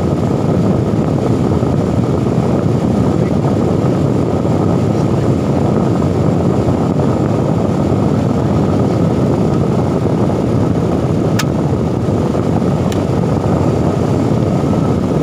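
HOWO truck's diesel engine idling steadily, heard from inside the cab. Two short sharp clicks sound a little over a second apart near the end.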